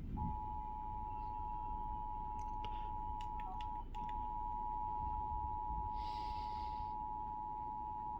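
Emergency Alert System two-tone attention signal sounding steadily for about eight seconds, with a brief break about four seconds in. It is the alarm that warns listeners an emergency alert message follows.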